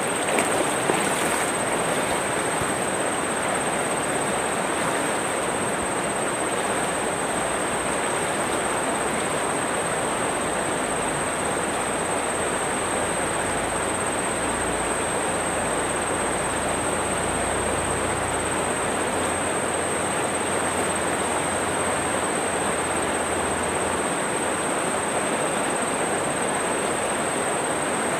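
Fast, flood-swollen river current rushing steadily, with a few splashes from wading about a second in.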